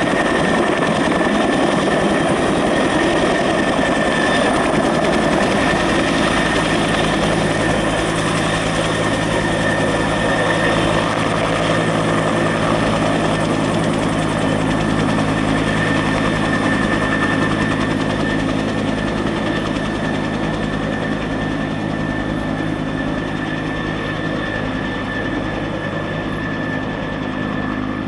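Red two-bladed firefighting helicopter carrying a bucket on a longline, flying past low and then overhead: a steady turbine whine over the even beat of the rotor, easing slightly in level toward the end as it draws away.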